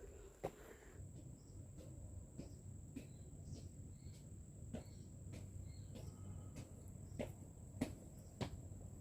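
Footsteps at an even walking pace, short sharp steps roughly every half-second to second, over a steady high-pitched whine and a low background rumble.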